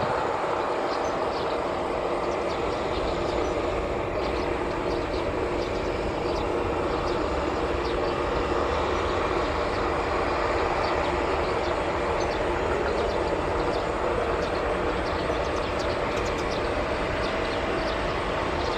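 Bombardier CRJ1000's two rear-mounted GE CF34 turbofans running at low taxi power: a steady, unchanging jet rumble and hiss.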